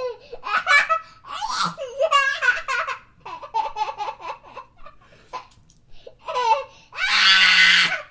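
A young child laughing in repeated bursts of high-pitched giggles and belly laughs, ending with a loud shriek of laughter about seven seconds in.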